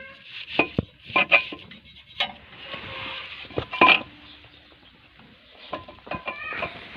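Irregular metallic clinks and knocks, with a short squeaky chirp near the start and again near the end.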